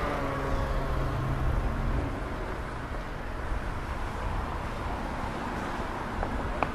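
City street traffic: a motor vehicle's engine hum that fades over the first two seconds, then a steady background of traffic rumble. A few light clicks come near the end.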